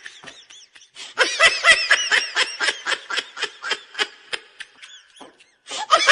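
High-pitched laughter as a sound effect: a quick run of ha-ha pulses that starts about a second in and trails off, with a second laugh starting near the end.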